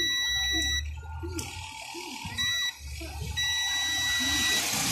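Digital multimeter's continuity beeper sounding in three steady beeps, a long one, a short one and a longer one, as the test probes touch a component on the TV's board: the beep is the meter reporting a short across the part. A hiss rises in the background.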